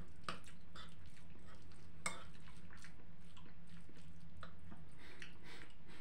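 Cutlery clinking and scraping on a plate as buckwheat is scooped up: scattered light clicks, the sharpest just after the start and about two seconds in.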